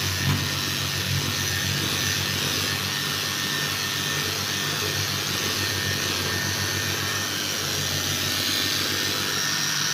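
Handheld electric polisher running steadily, its round pad grinding over the wet surface of a vanity sink top, with a constant motor hum.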